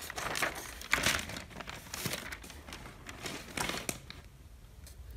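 Sheets of paper rustling and crinkling as the written page is moved aside for a fresh blank one, in irregular rustles that are loudest about a second in and again near four seconds.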